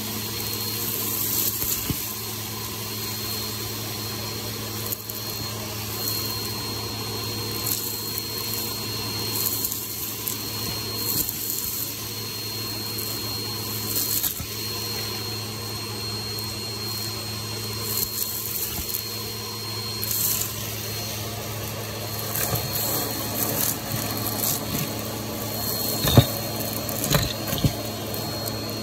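Vacuum cleaner running steadily through a black hose wand, with scattered clicks and rattles as sequins, plastic bottle caps, pull tabs and grit are sucked up the tube; the loudest clatter comes near the end.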